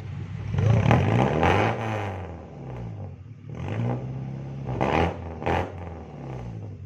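Toyota Kijang Krista's engine revved up and back down several times through a newly fitted HKS racing muffler, giving a deep exhaust note.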